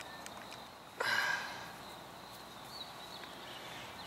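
A short, sharp breath out about a second in, from the effort of forcing half-inch poly drip mainline tubing onto a plastic elbow fitting, with a few light plastic clicks from the fitting just before it. A steady high insect drone runs underneath.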